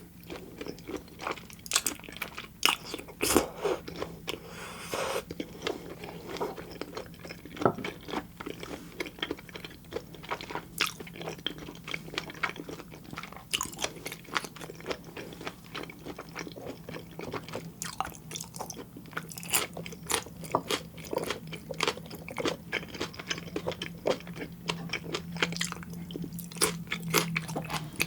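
Close-miked chewing of raw fish sashimi and flying fish roe: wet mouth smacks and many small, irregular crackling pops and crunches, with no talking.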